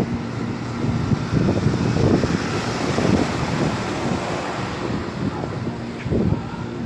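Outdoor central air conditioner condenser running with a steady hum, under irregular gusts of wind buffeting the microphone.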